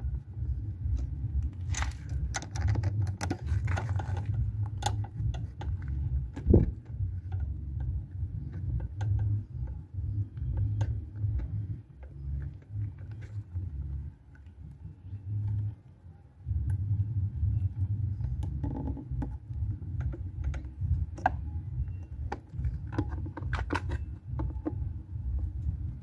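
Scattered light clicks and rattles of plastic air-filter box parts and fasteners being handled and fitted on a Honda Dream 110 motorcycle, with one sharper knock, over a low, uneven rumble.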